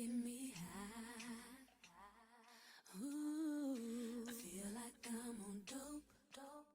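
Background music: a woman's voice singing long, wavering held notes with few or no clear words, in several phrases.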